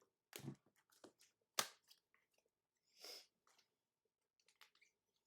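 Faint handling noises from trading cards and their holders being gathered and set down: a few soft clicks and taps, then a brief rustle about three seconds in.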